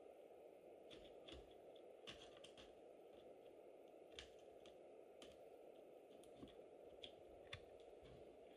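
Near silence: a steady low hiss with about a dozen faint, scattered clicks.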